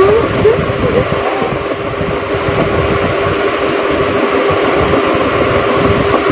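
Steady rushing noise with a constant low hum from an electric fan, its airflow rumbling on the microphone. A few short vocal squeaks come in the first second or so.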